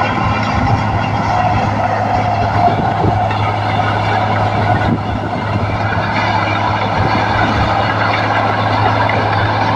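Komatsu D58P bulldozer's diesel engine running steadily with a deep, even drone, dipping slightly in loudness about five seconds in.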